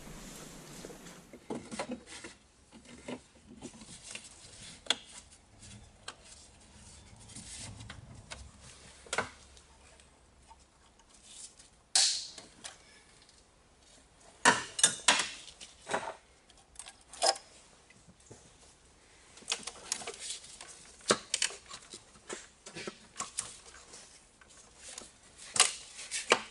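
Scattered metallic clinks, taps and knocks of hand tools and parts being handled while working on a car engine, coming more often in the second half.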